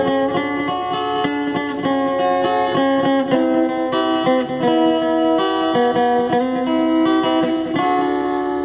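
Instrumental break of a gospel song: acoustic guitar strummed and picked in a steady rhythm, with sustained backing notes.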